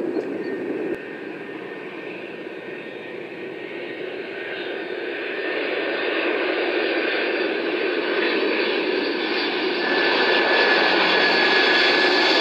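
Jet engines of a McDonnell Douglas MD-11 freighter on final approach, their steady roar growing louder as it nears, with a high engine whine coming in about ten seconds in. The first second is a different jet, a Boeing 747 climbing out, cut off abruptly.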